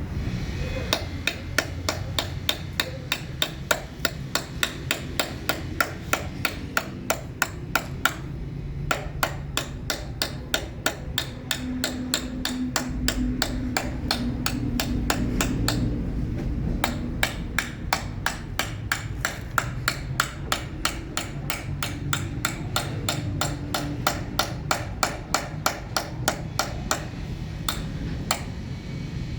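Hand hammer tapping a steel chisel to engrave a design into stone, in quick, even strikes about three a second, with two short pauses. A steady low hum runs underneath.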